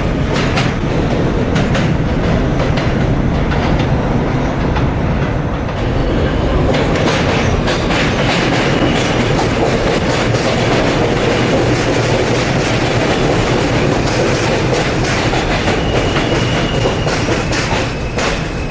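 New York City subway train running past, its wheels clattering steadily over the rail joints. A faint high-pitched whine comes in now and then in the second half.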